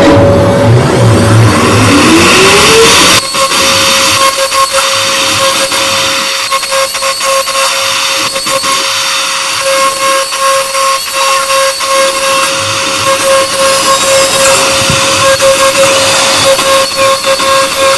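CNC router spindle rising in pitch over the first few seconds, then holding a steady high whine as the bit cuts the MDF sheet, with a gritty, crackly cutting noise.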